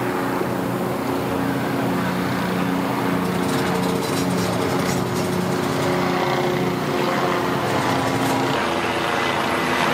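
Helicopter circling overhead: a steady engine and rotor drone.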